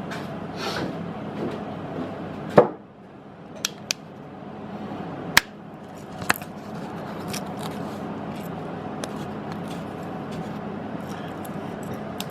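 Steady workshop hum with a loud knock about two and a half seconds in, then a few sharp lighter clicks, as tools are handled while setting up at a milling machine.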